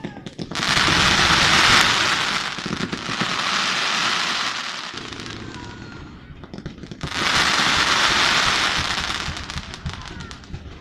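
Fireworks display: three long swells of loud hissing and crackling, each lasting a couple of seconds, with a dense patter of small crackling pops toward the end.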